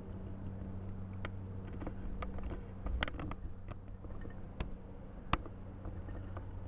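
A low steady hum with a few faint clicks and taps scattered through it.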